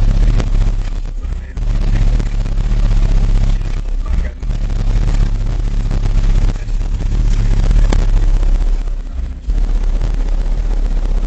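Twenty-four Rockford Fosgate T2 12-inch subwoofers in a truck playing bass at competition volume, overloading the microphone into a distorted rumble. The bass drops away briefly several times. The air pressure is strong enough to blow hair about.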